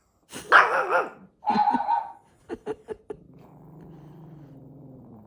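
Small pet dog barking: two loud calls, the first wavering in pitch, then three or four short sharp barks, followed by a low, steady growl from about three seconds in.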